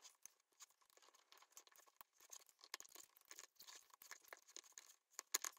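Faint scattered clicks and scrapes of a utility knife blade prying a hardened hot-glue seal off a coaster it has stuck fast to, a little louder near the end.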